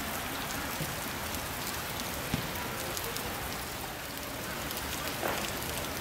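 Steady, even hiss of noise with small ticks in it, and faint distant shouts now and then.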